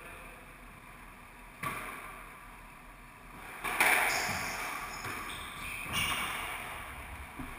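Squash rally: a racket strikes the ball and the ball smacks off the court walls, each hit a sharp knock that rings in the enclosed court. There is a light knock about one and a half seconds in, the loudest hit about four seconds in, and another near six seconds, with shoes squeaking on the wooden floor in between.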